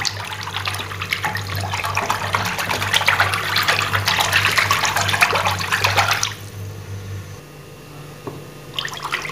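Wooden hand churner (madhani) spun back and forth in a plastic bowl of yogurt thinned with water, giving a wet sloshing, splashing churn as the lassi is beaten smooth. It stops about six seconds in and starts again just before the end.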